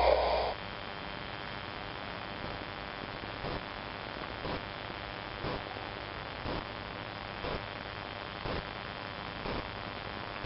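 Weather radio receiver left on after the broadcast ends: a steady hum and hiss, with a faint short tick about once a second. The last syllable of the announcer's voice cuts off about half a second in.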